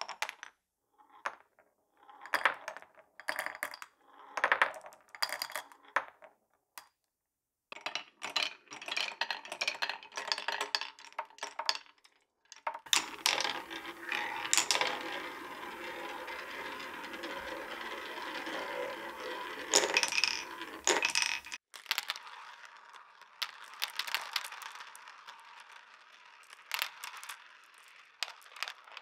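Marbles running through marble-run tracks. Glass marbles knock and rattle on wooden blocks in short spells. In the middle, a small ball rolls steadily around a wooden spiral track for several seconds and stops abruptly. Near the end, glass marbles click against each other as they circle a plastic funnel.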